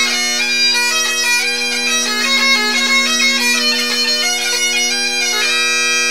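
Two sets of Great Highland bagpipes playing a hornpipe in unison, the chanter melody moving quickly over steady drones. Near the end the chanters settle onto one long held note.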